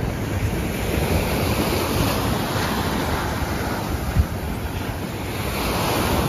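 Wind buffeting the microphone over the steady wash of sea waves, with a single short knock about four seconds in.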